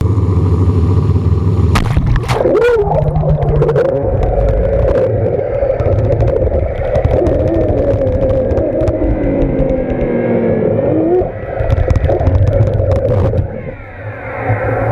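SwellPro Splashdrone quadcopter's motors and propellers running, a hum whose pitch drifts up and down as it manoeuvres, over a heavy low rumble. Near the end a rising whine.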